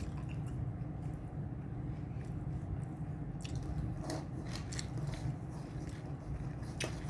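Eating sounds close to the microphone: chewing and biting food, with a few short clicks, over a steady low hum.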